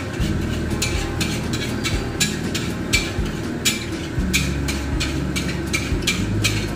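Gas wok burner running with a steady low rumble, under sharp metal clanks of a spatula against the wok, two or three a second at uneven intervals, as food is stir-fried.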